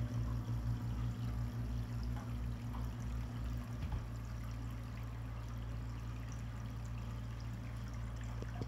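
Pond aerator running, water bubbling and trickling over a low hum. The hum pulses rhythmically for the first few seconds, then holds steady.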